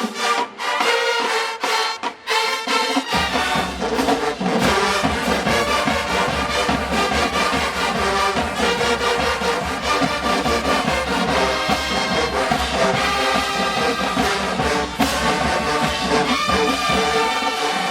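HBCU show-style marching band playing, led by loud brass. The first three seconds are short clipped hits; then the low brass and drums come in under the horns and the full band plays on steadily.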